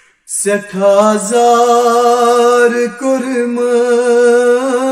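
A man singing a Kashmiri noha, a Shia lament, in slow, long-held notes. The voice comes in just after the start, after a short pause.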